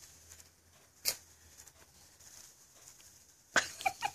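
A young child's sudden non-speech vocal sounds: a brief sharp one about a second in, then a louder burst of several quick sounds near the end.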